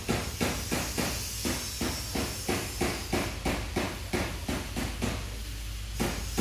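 Rhythmic knocking strikes, about three a second, that stop about five seconds in, followed by one more strike near the end.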